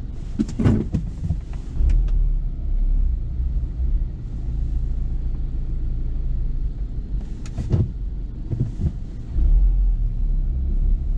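Low rumble inside a car's cabin in an automatic car wash bay, swelling twice, with a few sharp knocks about a second in and again near the end.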